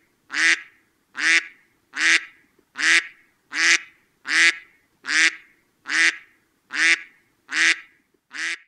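A nasal, duck-like quacking honk repeated at an even pace, about once every 0.8 seconds. Each call is the same as the last, like a looped sound effect.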